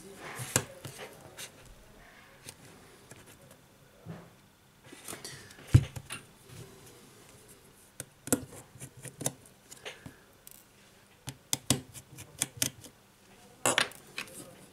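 Irregular clicks, taps and light scrapes of tablet parts being handled and pressed into the tablet's metal frame by hand during reassembly, with one heavier knock about six seconds in.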